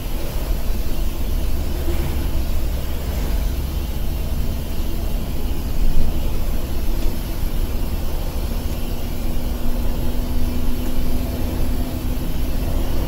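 Mercedes-Benz OH 1626 bus under way, heard from inside the cabin: steady low engine and road rumble with an engine hum that grows stronger about two-thirds of the way in.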